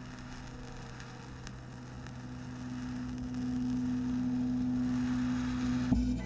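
E3D tool-changer 3D printer running, its motors giving a steady hum over a light hiss that grows louder about halfway through as the tool head moves off.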